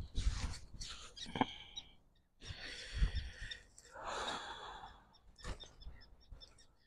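Gusts of wind buffeting the microphone in deep rumbles, twice strongly (at the start and about three seconds in), over rustling and small clicks as hands work in a landing net.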